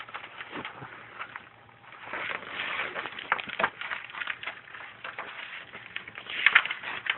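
Soft rustling with scattered small clicks, the sound of a picture book's paper pages being handled, louder about two seconds in and again near the end.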